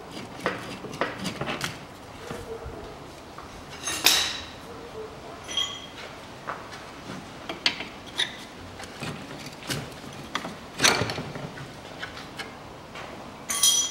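Irregular metallic clinks and knocks of hand tools and loose steel bolts being handled at a car's front steering knuckle, with a few louder ringing clanks spread through.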